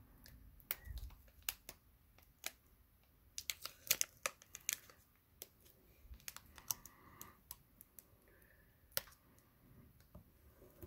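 Foil wrapper of a Pokémon Lost Thunder booster pack crinkling and crackling in scattered sharp clicks as fingers pick at its stubborn top seal, trying to tear it open by hand.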